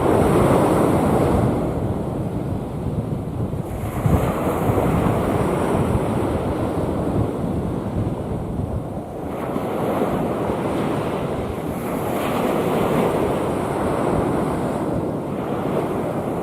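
Rough sea: waves breaking and washing in, in surges every few seconds, with wind buffeting the microphone.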